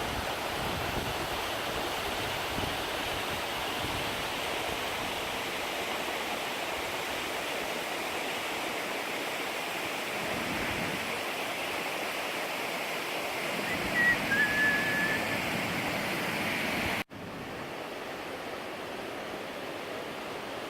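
Steady rushing of a mountain stream's water over rocks, a constant even hiss. About 17 seconds in it cuts off abruptly and resumes a little quieter, at an edit.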